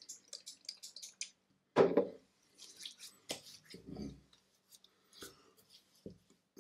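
Aftershave lotion being splashed into the hands and patted and rubbed onto a freshly shaved face: a quick run of small wet drips and clicks at first, then a few soft wet pats about two, four and six seconds in.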